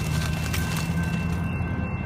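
BNSF double-stack intermodal well cars rolling past close by: a steady low rumble of wheels on rail, with thin steady high tones ringing over it.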